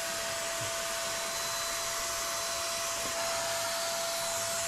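Handheld INGCO electric paint sprayer running steadily while spraying paint onto metal grills: an even motor whine over a strong rush of air and spray, its newly unblocked nozzle spraying freely.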